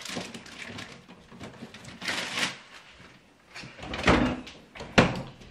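Rummaging in a refrigerator: rustling and light knocks, a thump about four seconds in, then a sharp, loud thump about five seconds in as the stainless steel fridge door is shut.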